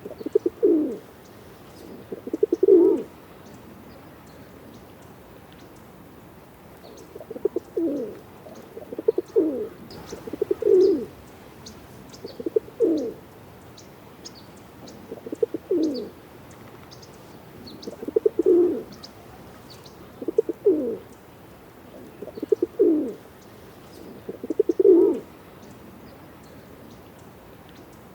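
Pigeon cooing: a series of low, throaty coos, each under a second, repeating about every two seconds, with a gap of a few seconds after the first three. Faint high ticks sound in the background.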